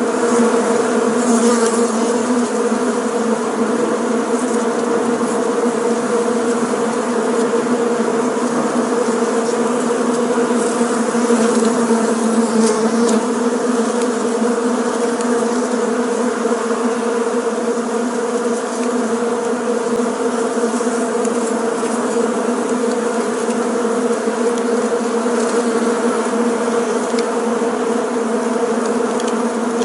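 Bees buzzing in a steady, unbroken drone.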